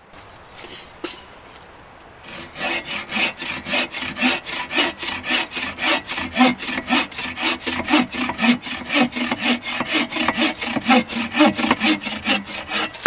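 Boreal 21 folding camp saw cutting through wood in quick, even back-and-forth strokes, starting about two and a half seconds in.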